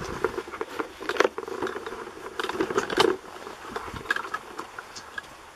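Footsteps on leaf litter and gravel, with handling noise from the camera being carried: irregular crackling and clicks that settle about three and a half seconds in.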